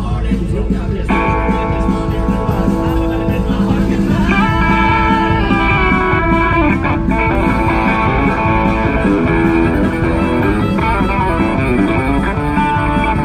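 Live band playing an instrumental break in a country-blues song: electric guitar lead over drums and bass.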